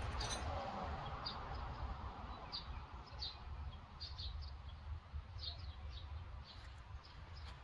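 Small birds chirping, short high calls every second or so, over a low steady outdoor rumble. A single sharp click comes just after the start.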